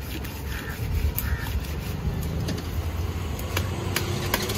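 A motor vehicle engine running by as a low rumble, with a few sharp clicks and scrapes near the end from a knife cutting through the scales and skin of a large catla fish.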